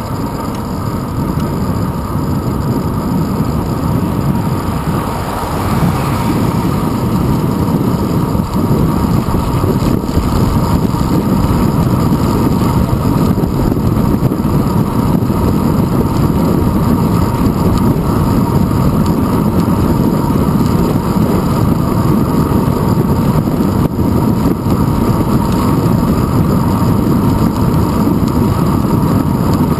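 Wind buffeting and road rumble picked up by a handlebar-mounted GoPro Hero 2 in its housing as the bicycle rolls along asphalt: a loud, steady low rumble that grows a little over the first few seconds, then holds.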